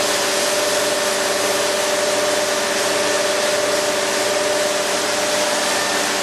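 Mattison hydraulic surface grinder running: a steady machine hum with a broad hiss, holding even without change.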